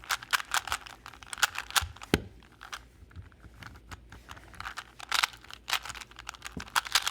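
Rubik's cube being turned by hand: its plastic layers click and clack in quick, irregular runs of turns, with a duller knock about two seconds in.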